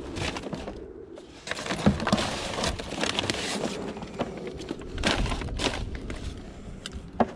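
Rummaging through a roadside pile of scrap by hand: irregular scraping, rustling and clinking as items are moved and pulled about, with one sharp knock near the end.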